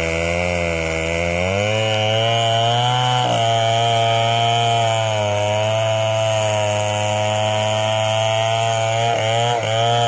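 Assembled 070 chainsaw, a big two-stroke copy of the Stihl 070, running under load with its bar buried in a mahogany trunk during felling. The engine note holds steady, dipping and recovering a little a couple of times as the cut is worked.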